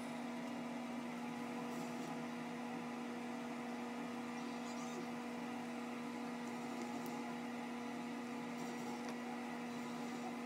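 Steady electrical hum: one low tone with a fainter tone at twice its pitch, unchanging throughout.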